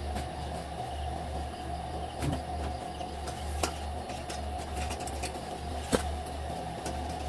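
Steady low machine hum with a constant higher tone over it, and sharp clicks and taps scattered through it, the loudest about six seconds in.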